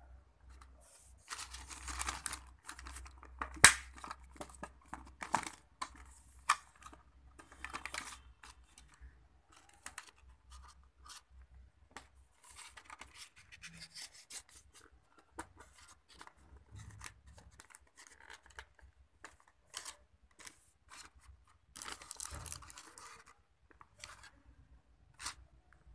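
Plastic packaging rustling and crinkling as earphones are unpacked and handled, with irregular clicks and taps throughout. The loudest is a sharp click about three and a half seconds in.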